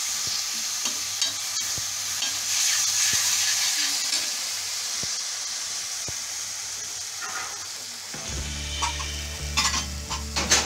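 Mustard-greens saag sizzling in hot ghee on an iron tawa while a steel ladle stirs and scrapes it across the pan, with sharper ladle scrapes and clicks near the end. A low steady hum comes in about eight seconds in.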